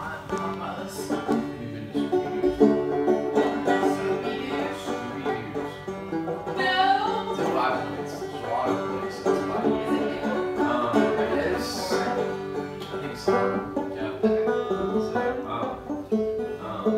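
Banjo being played, a steady run of plucked, ringing notes in a bluegrass or country style.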